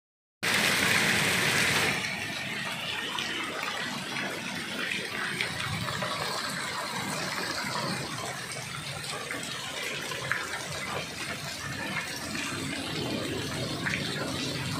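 Hailstorm: hail and heavy rain pouring down, a dense steady hiss with scattered sharp ticks of stones striking. It is louder for about the first second and a half, then settles.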